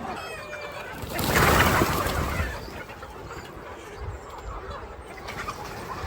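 Chickens clucking and birds chirping, broken about a second in by a louder rustling, rushing noise that lasts about a second and a half.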